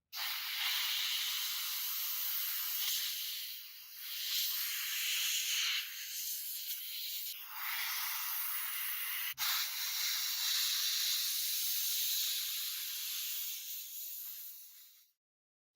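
Steady, loud spraying hiss with short dips about 4 and 7.5 seconds in and a sudden break about 9 seconds in, cutting off shortly before the end.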